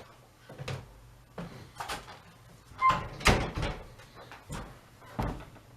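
Scattered knocks and clunks of someone rummaging through workshop storage for a pair of snips, the loudest clunk about three seconds in.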